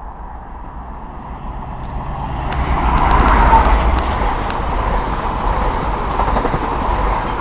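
An InterCity 125 HST (Class 43 diesel power car hauling Mark 3 coaches) approaches and passes close by. It grows louder to a peak about three seconds in as the power car goes past, with a run of sharp clicks. The steady rush of the coaches' wheels on the rails follows.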